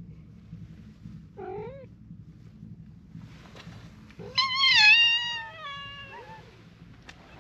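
Stray cats meowing: a short meow about a second and a half in, then a loud, long meow about four seconds in that falls away slowly.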